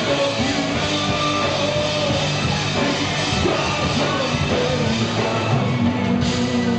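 Live rock band playing at full volume: electric guitars and drums, with the singer's vocals over them.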